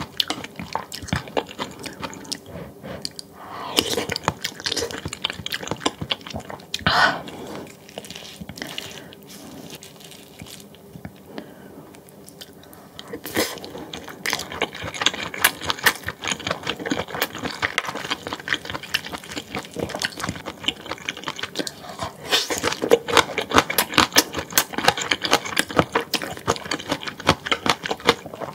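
A person chewing and biting food, a quick run of wet and crunchy mouth sounds that gets busier and louder about three-quarters of the way through.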